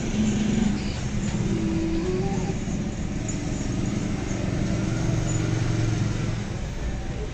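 Road traffic: a motor vehicle engine running with a low, shifting drone that is strongest about five to six seconds in.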